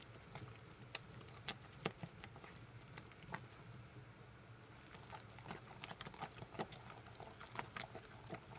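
Spatula stirring thick hot-process soap batter in a slow-cooker crock, with irregular clicks and taps as it knocks and scrapes against the crock, over a low steady hum.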